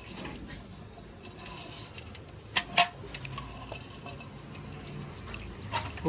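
Water sloshing and splashing in a steel bucket as hands move through it among live fish and shrimp, with two sharp knocks a moment apart about two and a half seconds in.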